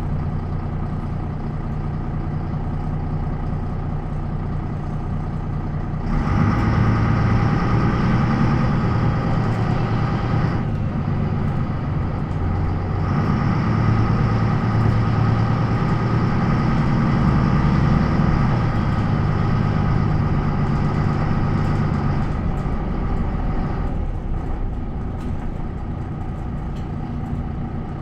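MAN NL 263 bus's D28 straight-six diesel, idling and then under load from about six seconds in, its note fuller and louder as the bus pulls away through the ZF Ecomat automatic gearbox. There is a short dip around eleven seconds, like a gear change, and the engine drops back to a quieter steady running near the end.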